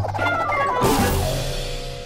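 Cartoon background music: a quick run of falling notes, then a cymbal-like crash about a second in that fades away.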